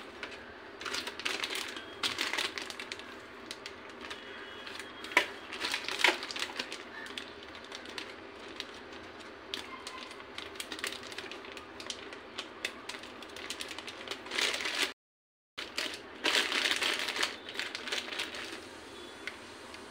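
Plastic zip-lock bag crinkling and rustling while frozen lemon-juice ice cubes are loaded into it, the hard cubes clicking and knocking against each other and the plate, with a few sharper knocks about five and six seconds in.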